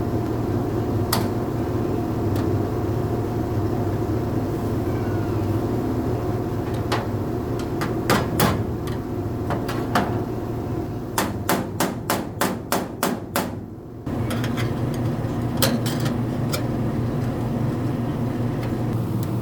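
Hammer blows on sheet-metal auto body panels: scattered single strikes, then a quick run of about eight blows, over a steady background hum.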